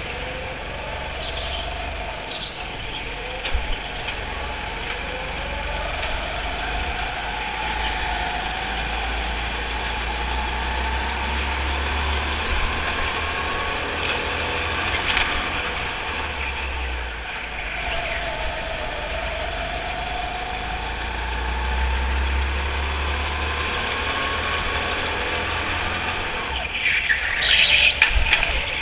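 Go-kart engine running at speed, its pitch climbing slowly and falling back again and again as the kart accelerates and lifts for corners. A brief louder, brighter burst comes near the end.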